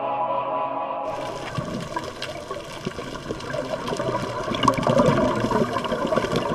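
Rushing, bubbling water that sets in suddenly about a second in, over faint steady musical tones.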